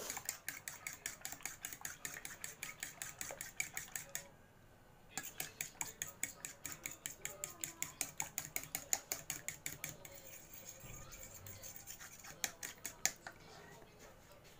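Eggs being beaten with a metal spoon in a ceramic bowl: a quick, even clatter of strokes that pauses for about a second a few seconds in, then carries on. Around ten seconds in it slows to a few last taps.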